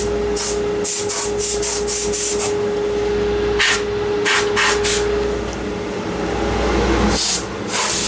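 Compressed air from an air-hose blow gun hissing in short bursts as it blows sawdust into a dust-collection trough: quick pulses several times a second at first, then a few spaced blasts and one longer blast near the end. A steady hum from the running dust collector lies underneath.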